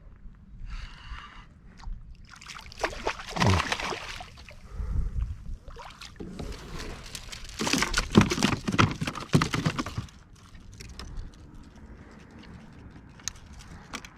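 Water splashing and sloshing around the kayak in two bursts of a few seconds each, the second the louder, with a low rumble of water underneath.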